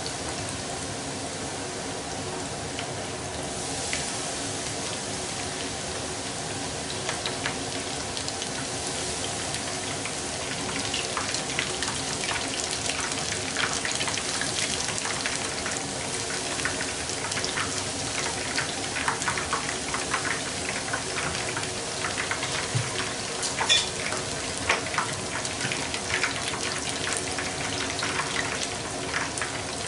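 Shrimp tempura deep-frying in a shallow pan of hot oil: a steady sizzle, with crackling and popping that grows denser about ten seconds in, as batter is drizzled into the oil.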